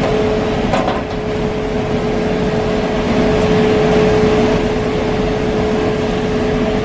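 Concrete mixer truck running steadily at the job site, its diesel engine and drum drive giving a constant droning hum with one steady tone, ready for the pour. A brief click sounds about a second in.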